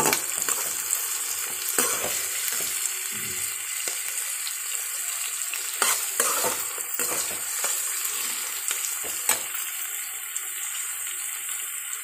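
Chopped onions sizzling in hot oil in a metal kadhai, with the occasional scrape and click of a perforated metal spatula stirring them against the pan. The onions are slowly frying toward pink-golden.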